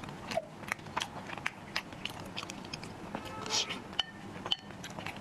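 Close-miked wet chewing and mouth clicks of someone eating soft, sticky glutinous rice balls (tangyuan), several sharp smacks a second.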